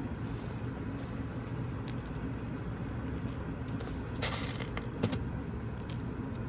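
Small sharp clicks and a brief rattle of a spring airsoft pistol's magazine being handled and loaded with BBs, the loudest cluster about four seconds in, over a steady low background hum.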